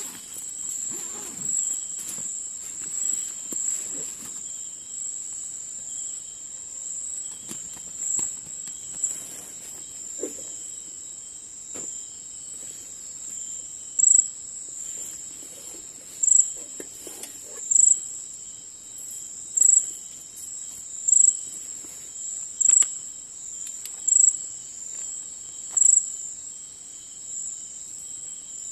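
Night insects shrilling steadily at a high pitch, with a louder chirp repeating about every second and a half through the second half, eight in all. Faint rustling of a nylon backpack being rummaged through underneath.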